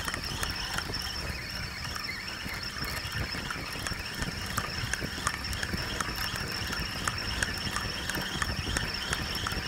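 Steady outdoor background: a low hiss with a thin steady high tone and many scattered faint ticks.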